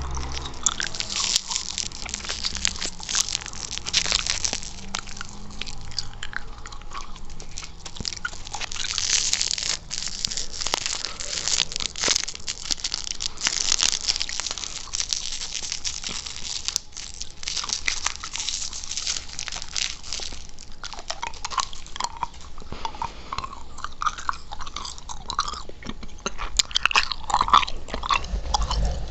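Chewing gum and mouth sounds: a dense, continuous run of sticky clicks, smacks and wet chewing noises.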